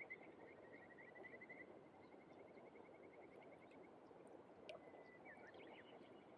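Faint steady rush of flowing stream water, with a rapid high-pitched trill that fades out after about a second and a half, and a sharp tick followed by a few short chirps near the end.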